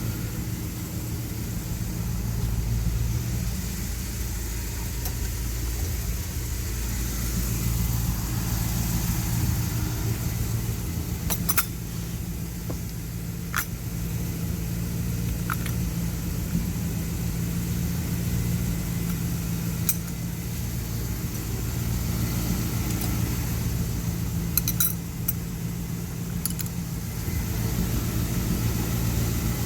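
1973 Dodge D100 pickup engine idling steadily, with a few sharp clicks of wrench work scattered through.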